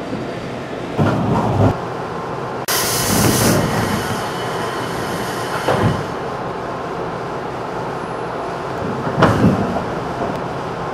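Running sound heard from inside a JR 211 series electric train at speed: a steady rumble of wheels on rail, with a sudden loud rush of hiss about three seconds in that lasts about a second, and a few short swells of rumble.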